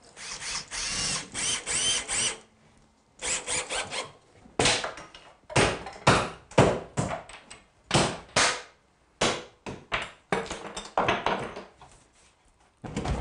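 Cordless drill/driver driving pan-head screws to join kitchen base cabinets side to side, its motor whining for about two seconds with the pitch bending as the screw seats. A run of short, sharp strokes follows, each well under a second.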